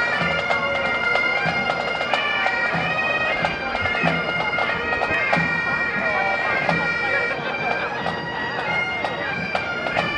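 Bagpipes playing a tune over their steady drones, with a low drum beat about twice a second beneath.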